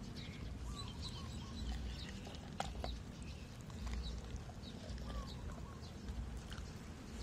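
Birds chirping in short scattered calls over a steady low rumble, with one sharp click about two and a half seconds in.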